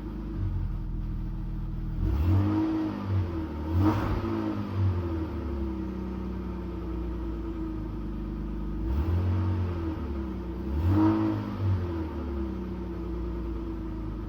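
BMW E39 520i's straight-six engine idling on worn original ignition coils, the failing coils the owner blames for how it runs. It is blipped up and back down twice, a few seconds into the clip and again about two-thirds through, settling back to idle in between.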